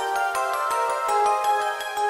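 Channel intro jingle music: quick runs of pitched notes over a fast, steady ticking beat.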